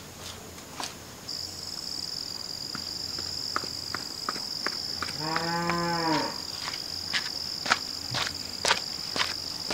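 A cow moos once, a single call about a second long, midway through. Under it runs a steady high-pitched insect drone that sets in about a second in, with scattered light clicks.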